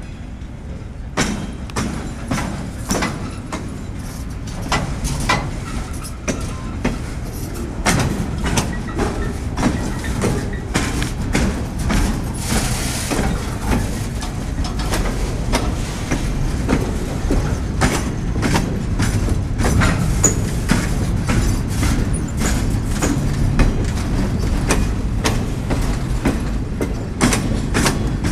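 Freight train of flatcars loaded with track maintenance machines rolling slowly past, with a steady low rumble and frequent sharp clanks and knocks from the wheels and cars, starting about a second in. A brief hiss about halfway through.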